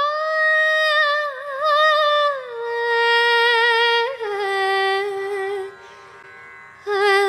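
Background music: a single Indian classical-style melody line of long held notes with wavering ornaments, stepping down in pitch. It drops away briefly near the end and then resumes.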